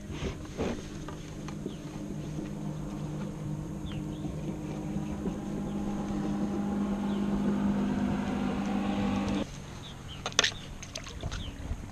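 A black drum drumming out of water while it is handled in the net: a steady, low, pitched croak that slowly grows louder and cuts off suddenly about nine and a half seconds in. About a second later there is a single sharp knock.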